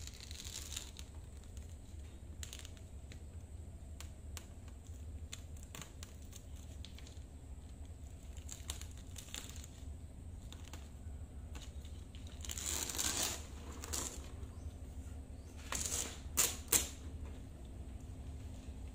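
Black duct tape being peeled off cured fiberglass in a tank's inside corner: scattered small crackles and clicks, a longer ripping stretch about 13 seconds in, and two or three louder rips near 16 seconds.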